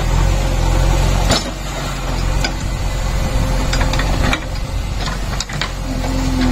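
JCB 3DX backhoe loader's diesel engine running steadily as the backhoe digs soil, with scattered sharp knocks about once a second.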